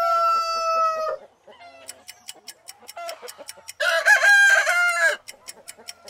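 Rooster crowing twice: a long crow that ends about a second in, then a second crow about four seconds in, lasting just over a second. A timer ticks about three times a second between and after the crows.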